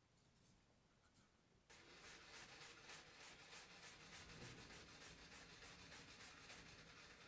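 Spindle carriage of a homemade milling machine traversing slowly along its linear stage actuator, its rod tip running along an aluminium extrusion. It comes in a couple of seconds in as a faint scratchy hiss with soft pulses about three times a second.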